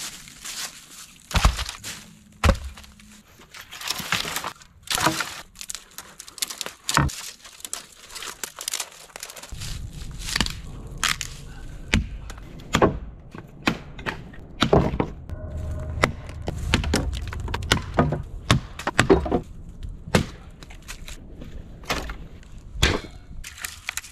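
Dry dead branches and sticks snapping as they are broken for firewood, by hand and underfoot: a string of sharp cracks at irregular intervals. A low rumble runs beneath the cracks from about halfway through.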